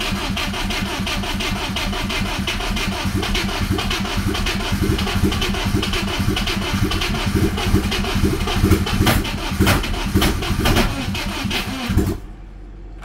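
BMW E36's M42 four-cylinder engine turned over on the starter for about twelve seconds without settling into a run, with a few sharp pops about nine to eleven seconds in; the cranking stops suddenly near the end. It will not start on its freshly wired Megasquirt ignition, which the owner suspects comes down to ignition advance or a wiring mistake in the coils.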